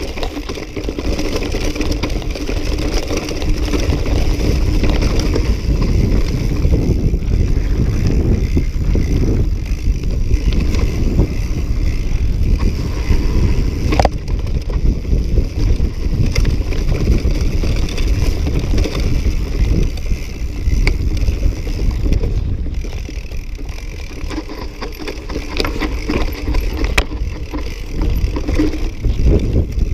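Mountain bike descending a rocky dirt trail: heavy wind rumble on the camera microphone over tyres rolling on dirt and rock and the bike rattling, with a couple of sharp knocks as it hits rocks.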